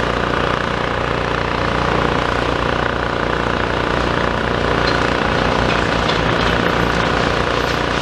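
Diesel engine of a demolition excavator running steadily.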